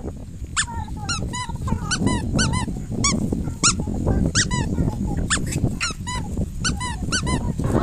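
Puppies yelping in short, high-pitched cries, two or three each second, as they are grabbed and lifted by children.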